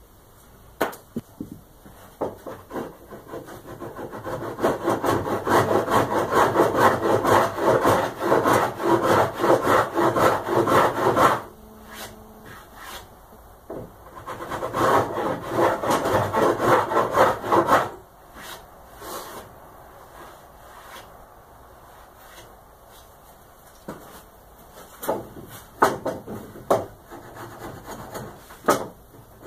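Hand tool cutting a wooden half-lap joint: rapid rasping strokes across the wood in two long runs, then a few scattered knocks and taps.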